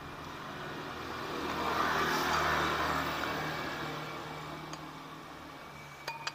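A passing motor vehicle, its noise swelling over a couple of seconds and then fading away, over a steady low hum. A few light metallic clicks near the end.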